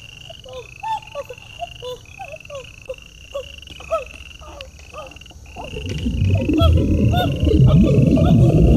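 Night chorus of frogs croaking, with a high rising chirp repeating about once a second. About five and a half seconds in, a loud low rushing noise swells up and drowns them out.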